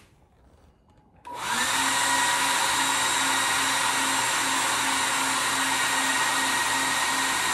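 Super Beast load tester switched on about a second in, then running with a steady blower-like rush and a thin whine, with a faint hum that pulses about twice a second, while it puts a heavy load on the service.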